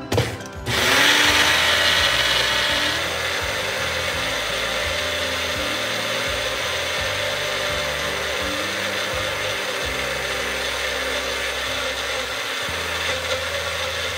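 Magic Bullet personal blender pureeing avocado, cilantro and yogurt. A clunk as the cup is pressed down onto the base, then the motor runs with a steady whirr, loudest for the first couple of seconds as it chops the chunks, and cuts off abruptly at the end.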